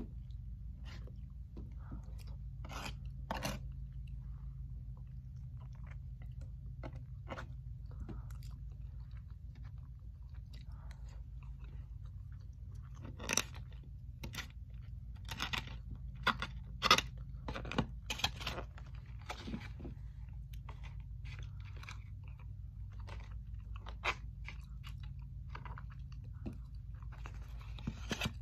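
A person eating close to the microphone: chewing and mouth sounds with scattered sharp clicks as a plastic fork is used. The clicks come in a busier, louder run about halfway through. A steady low hum runs underneath.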